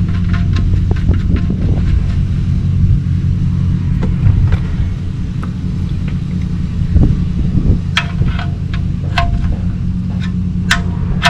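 Steady low hum with a few sharp metallic clicks and clinks from hand tools working on the drain plug under the car, several of them near the end.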